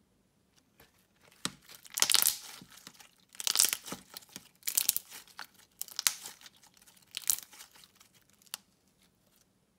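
Hands kneading and stretching slime: a run of crackling, popping bursts about once a second, starting about a second in and dying away near the end.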